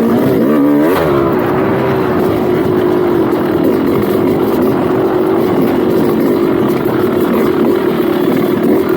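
Dirt bike engine riding a trail: it revs up and down quickly about a second in, then holds a fairly steady pitch under throttle.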